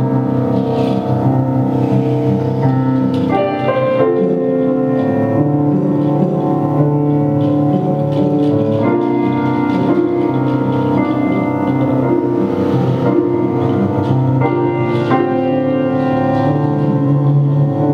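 Live improvised ensemble music led by sustained, organ-like keyboard chords that shift every few seconds.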